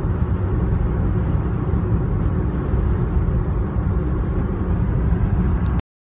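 Car driving at road speed, heard from inside the cabin: a steady low rumble of engine and road noise that cuts off suddenly near the end.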